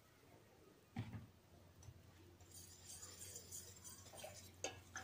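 Faint kitchen sounds: a single soft knock about a second in, then quiet whisking from about halfway, as starch is stirred into cold milk in a stainless steel saucepan.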